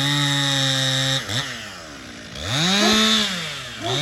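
Two-stroke chainsaw revved in bursts: held at high revs for about a second, dropping back toward idle, then revved up again about two and a half seconds in and once more near the end.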